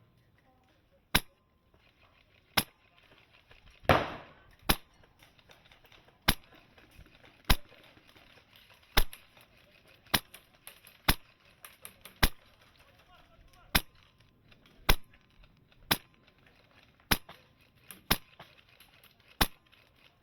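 Airsoft guns firing single shots, sharp cracks at roughly one a second throughout, with one heavier, longer burst about four seconds in.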